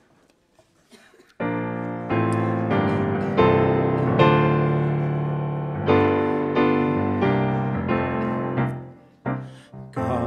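Piano playing slow, sustained chords, starting about a second and a half in: the introduction to the entrance hymn.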